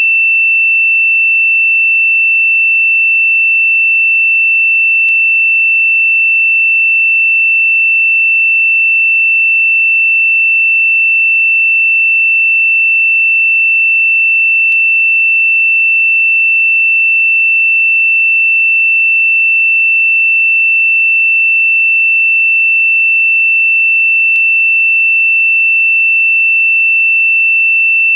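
A steady, high-pitched pure sine tone from a meditation frequency track, held at one unchanging pitch and level. Three very faint clicks come about ten seconds apart.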